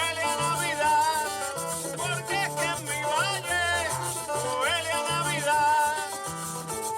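Background music: a Puerto Rican Christmas aguinaldo with a sung vocal line over a steady run of bass notes.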